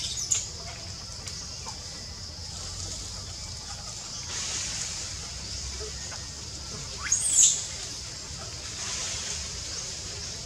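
Baby long-tailed macaque screeching: short, high squeals right at the start and again, louder, about seven seconds in, over a steady high-pitched background hum.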